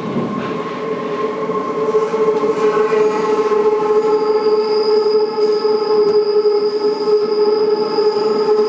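Subway train running, with a steady high-pitched whine of several held tones over a rumbling roar that grows louder about two seconds in.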